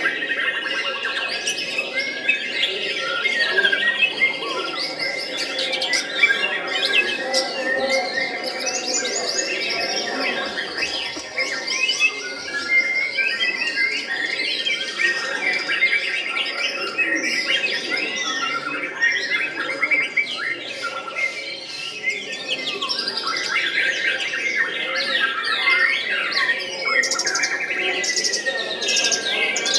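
White-rumped shama (murai batu) singing a dense, unbroken song of quick whistled glides and trills, in the rolling-and-shooting 'roll tembak' style its keeper describes.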